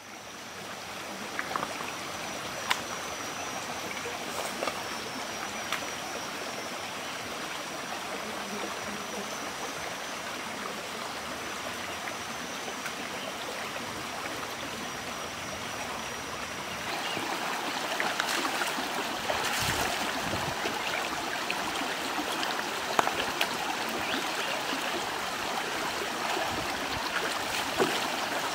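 Shallow rocky stream babbling steadily over stones, growing louder about seventeen seconds in, with a few short splashes of water being waded through.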